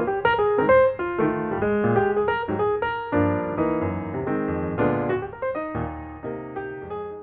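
Intro music on piano, a busy run of quick struck notes and chords. It fades out gradually over the last couple of seconds.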